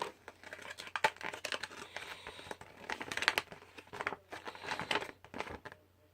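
Crinkling and rustling of phone-case packaging inserts being handled, with many sharp crackles and clicks, stopping shortly before the end.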